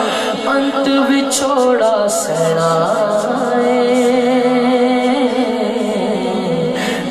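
Male voice singing a Punjabi naat through a microphone, the melody turning and then settling into long held notes over a steady low sustained tone.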